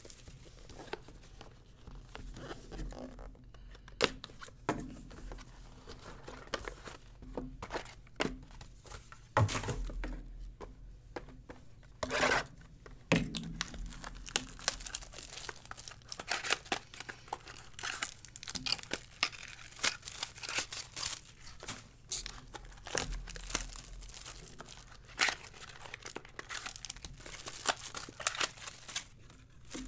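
Foil trading-card packs and card boxes being torn open by hand, wrappers crinkling and crackling irregularly, with a few sharp knocks as boxes and packs are set down on the table.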